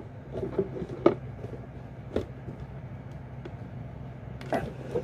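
Hard plastic of a retail anti-theft security box clicking and creaking as a screwdriver wedged into its lid is twisted to pry it open: a few sharp clicks about a second apart over a steady low hum.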